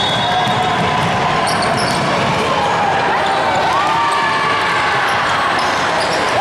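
Basketball game play: a basketball bouncing on the court amid a steady din of players' and spectators' voices.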